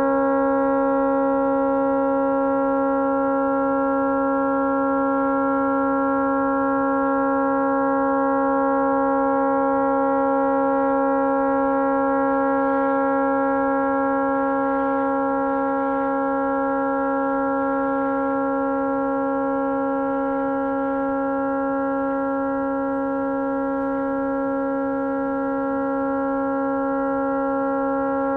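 Tugboat horn stuck on, sounding one unbroken, steady note that does not change in pitch: the horn has malfunctioned and will not shut off.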